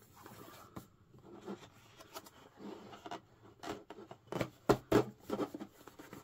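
Hands rubbing and pressing on a pink plastic toy boutique panel as it is worked into place: scraping with scattered plastic clicks and knocks, sharper and closer together a little past the middle.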